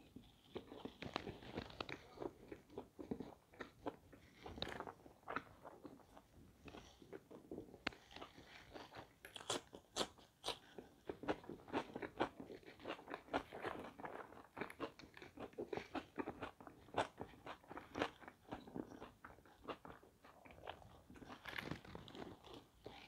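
A person biting and chewing pizza crust close to a clip-on microphone: a steady run of small, irregular crunches and mouth sounds.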